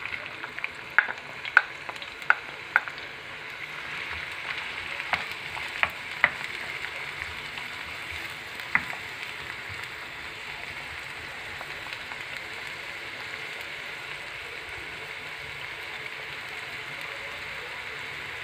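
Diced onion sizzling in hot oil in a frying pan, a steady hiss. A wooden spoon knocks sharply a few times in the first six seconds as the onion is pushed into the pan and stirred, and once more near nine seconds.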